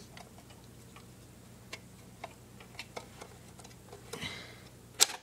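Scattered small plastic clicks and ticks as an Xbox 360's casing is worked loose by hand, with a brief scrape and then one sharp, loud click near the end.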